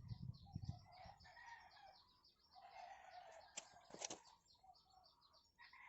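Faint outdoor ambience: small birds chirping rapidly and a rooster crowing in the background. Two short clicks come just past the middle.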